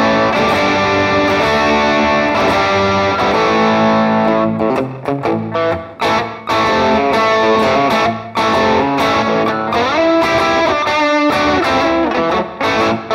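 Electric guitar played through the crunch patch of a Valeton GP-200 multi-effects unit: lightly overdriven chords and phrases ringing out, with a few brief gaps between phrases.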